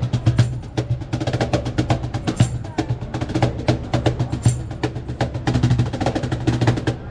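Music with fast, busy percussion, many quick hits a second, over a steady low bass line.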